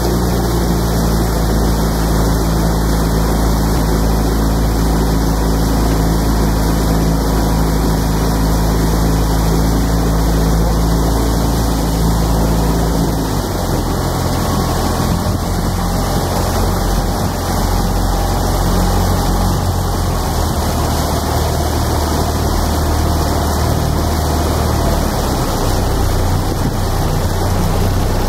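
Outboard motor of a boat running steadily, its note changing about halfway through, over a steady hiss.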